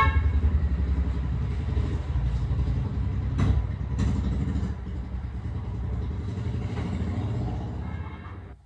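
A motor running with a steady low rumble, with two sharp clicks about three and a half and four seconds in. It fades and drops away near the end.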